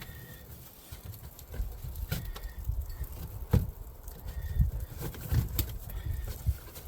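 Scattered knocks and clicks over a low rumble: a plastic storage tote and its tie-down strap being handled in a pickup bed.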